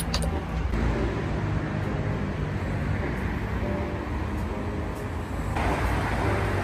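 Street traffic: a steady rumble of passing cars, which gets louder and hissier about five and a half seconds in.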